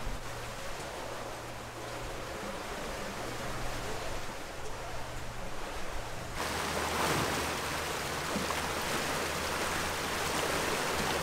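Water rushing along the hull of a catamaran under way, with a steady low hum underneath. The rush gets louder about six seconds in.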